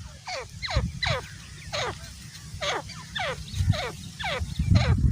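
Grey francolin (grey partridge) calling: a rapid series of sharp, falling whistled notes, about three a second, over a low rumble.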